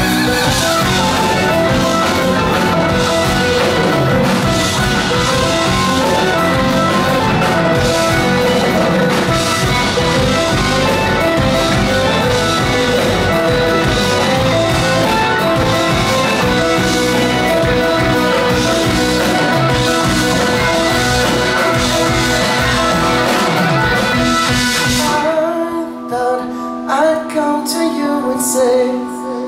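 A live progressive rock band playing with drums, bass, electric guitar and keyboards. About 25 seconds in, the drums and low end drop out, leaving a sparser, quieter passage.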